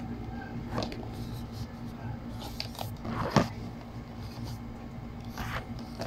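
Small cardboard product boxes handled and shuffled in the hands, with light taps and rustles and one sharper knock about halfway through.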